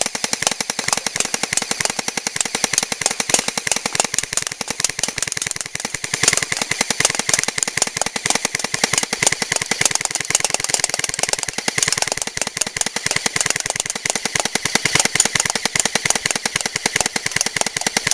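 Airsoft Thompson M1A1 electric gun firing one long, unbroken full-auto burst: a fast, even clatter of shots, with the BBs knocking down the stacked cans.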